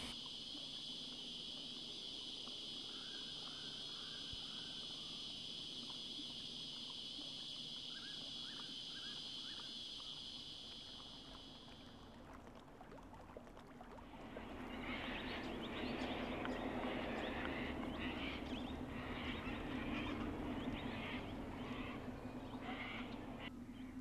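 In the first half, a steady high-pitched drone with a few short runs of chirps. It stops after about twelve seconds, and a couple of seconds later sulphur-crested cockatoo calls begin: short, rough calls repeated about twice a second.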